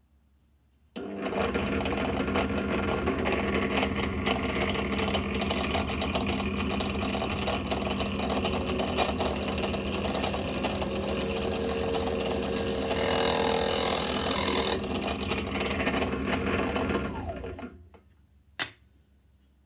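Benchtop drill press switched on about a second in, its motor running steadily as a spade bit bores out a rubber grommet. The sound brightens for a couple of seconds about two-thirds of the way through, then the motor is switched off and winds down, followed by a single click.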